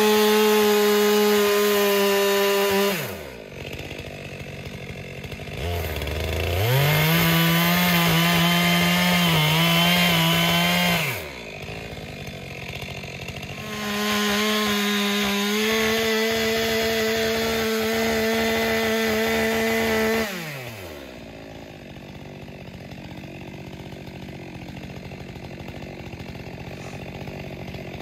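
Two-stroke chainsaw opened to full throttle in three bursts of a few seconds each, dropping back to idle after each and idling through the last several seconds. In the middle burst the pitch is lower and wavers, the saw loaded in a cut through wood.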